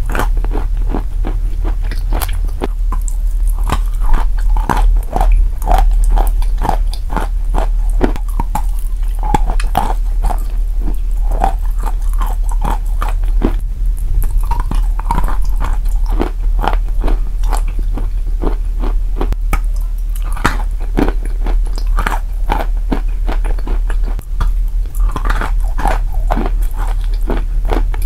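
Sawn chalk coated in clay paste being bitten and chewed close to a clip-on microphone: a dense, irregular run of crunches and chewing.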